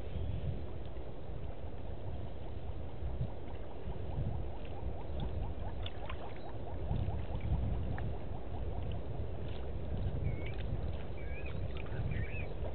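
African elephant drinking at a waterhole: water sloshing and gurgling around its trunk over a steady low rush, with a few faint high chirps near the end.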